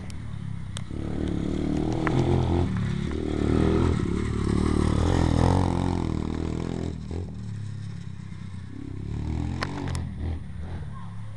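Orion X-125 pit bike's 125cc four-stroke engine revving as the bike rides past, getting louder over the first couple of seconds, loudest in the middle and fading away after about seven seconds.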